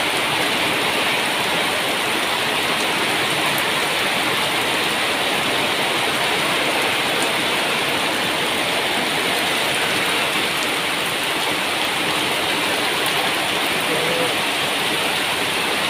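Heavy downpour falling steadily on corrugated metal roofs, with water pouring off the roof edge: a dense, unbroken rattling hiss.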